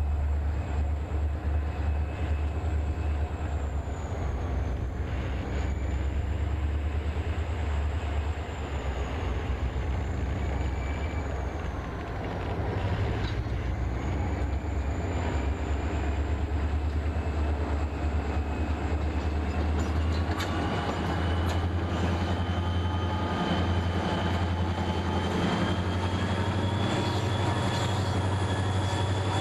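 Diesel freight locomotives approaching and passing close by, their engines making a deep, steady rumble. From about two-thirds of the way through, a high whine grows louder and rises in pitch as the units come alongside.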